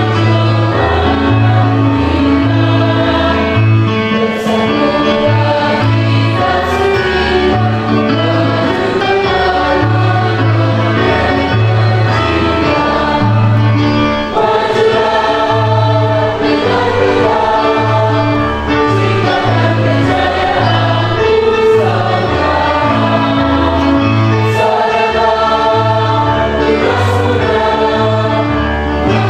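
Background music: a choir singing in harmony over a steady bass line.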